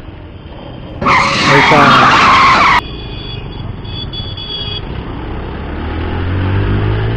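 Bajaj Pulsar 150's single-cylinder engine running under the rider, rising in pitch and getting louder over the last couple of seconds as the bike speeds up. About a second in, a loud rushing noise lasts nearly two seconds and cuts off suddenly.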